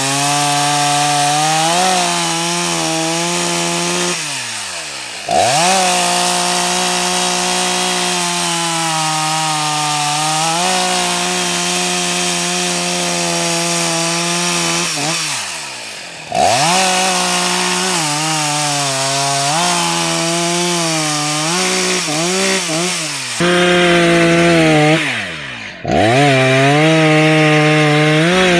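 Husqvarna 181SE two-stroke chainsaw bucking a pine log, the engine running hard under load through the cuts. Three times the revs fall away briefly and pick straight back up as it goes into the next cut.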